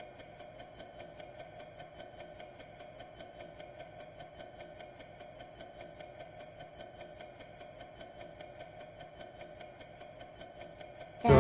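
A clock ticking steadily, several quick even ticks a second, over a faint steady hum.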